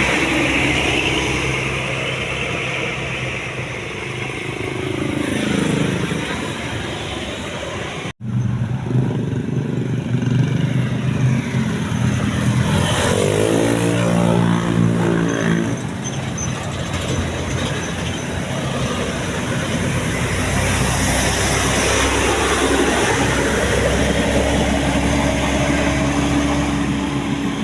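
Road traffic with large buses driving past, their engines rising and then falling in pitch as each one goes by. The sound cuts out for an instant about eight seconds in.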